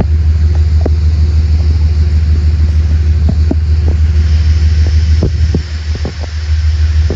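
Steady, loud low rumble, dipping briefly about five and a half seconds in, with a few faint knocks over it.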